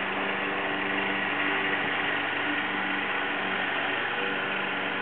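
A steady mechanical hum of a running motor: a constant low drone with a faint higher whine, unchanging throughout.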